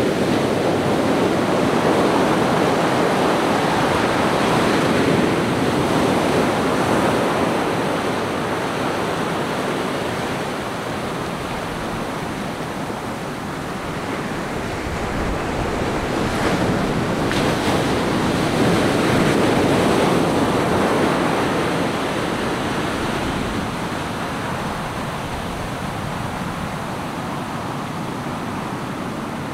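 Ocean surf breaking and washing up a sandy beach, a steady rush of water that swells and eases in slow surges.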